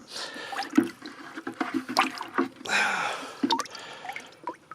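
Water splashing and sloshing in a bucket as a hand grabs at live fish, with irregular splashes and small knocks.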